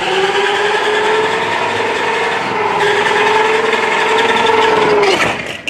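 Electric motor and gears of a toy RC monster truck whining steadily as it drives slowly through sand, then winding down about five seconds in. The sand is holding it back.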